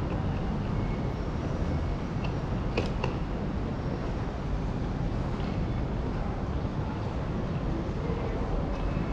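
Steady low vehicle rumble, with a brief click about three seconds in.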